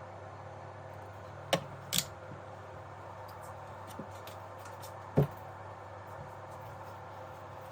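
A few sharp clicks and taps from handling tools or parts on a workbench, the loudest about five seconds in, over a steady low hum and hiss.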